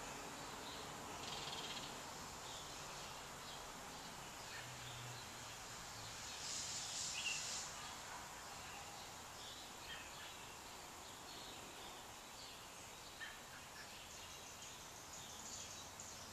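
Quiet outdoor ambience: faint birds chirping now and then over a steady hiss, with a brief louder hissy burst about seven seconds in.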